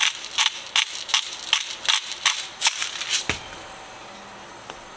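Salt being shaken from a shaker into a pot of chili, about three quick shakes a second, about nine in all; they stop a little over three seconds in with a single knock.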